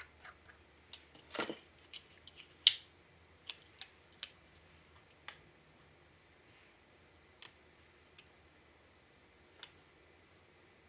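Irregular light clicks and taps of fingers and a small tool on a MacBook Air's housing and display hinges while the display's alignment is adjusted. A brief scrape comes about a second and a half in and the sharpest click just before three seconds; the clicks thin out in the second half.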